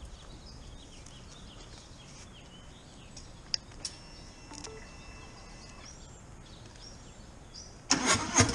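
Quiet outdoor background with a few small clicks and faint high chirps. Near the end the motorcycle's electric starter begins cranking, a rapid burst of clicking noise just before the engine catches.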